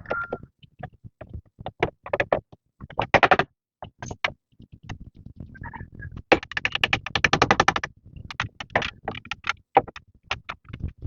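A clatter of sharp clicks and knocks, irregular at first, with a dense run of rapid strokes for about a second and a half past the middle; a short high call is heard near the start.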